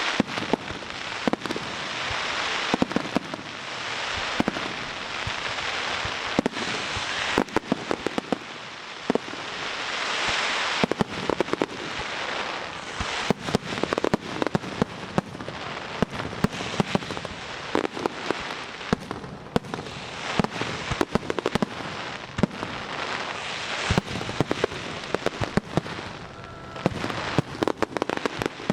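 Aerial fireworks display going off continuously: a dense run of sharp cracks and bangs over swelling waves of hissing crackle from the bursting shells.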